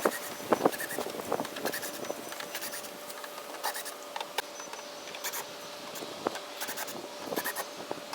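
Scattered clicks, knocks and scraping of hands working on plastic car body parts, likely fender flares being removed, with a faint steady hum underneath.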